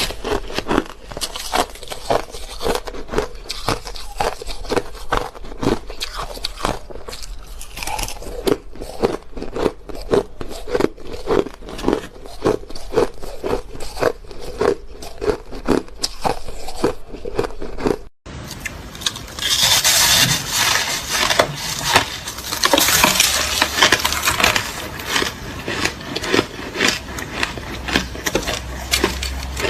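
Crushed ice being chewed close to the microphone, crunching in a steady rhythm of about two to three bites a second. After a brief dropout about 18 seconds in, the crunching turns denser and crisper.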